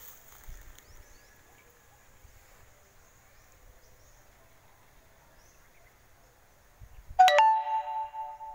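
Quiet background, then about seven seconds in a sudden bell-like chime: a sharp strike followed by several ringing tones that fade over about a second and a half.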